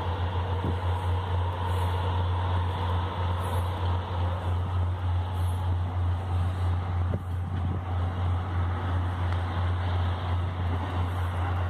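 Steady low drone of a diesel engine running, over a continuous broad rumble.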